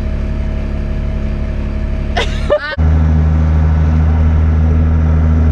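Farm loader's engine running steadily with a low drone; a little under three seconds in it changes abruptly to a louder, deeper steady drone.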